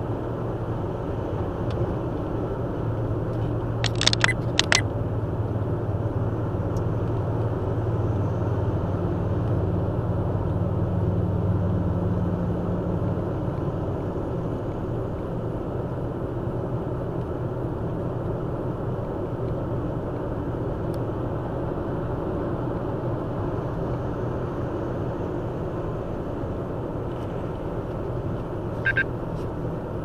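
Car cruising at highway speed, heard from inside the cabin: a steady rush of tyre and road noise over a low engine hum. A few sharp clicks sound about four seconds in, and a short high-pitched sound comes near the end.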